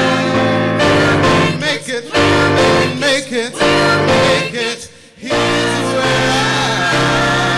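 Mixed youth choir singing with a male soloist, in long held chords broken by short pauses, the longest about five seconds in.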